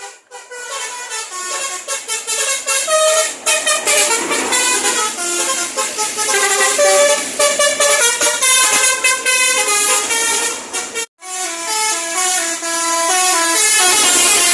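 Bus 'telolet basuri' multi-tone musical air horn playing a melody, one note stepping to the next every fraction of a second. It breaks off briefly about eleven seconds in, then plays on.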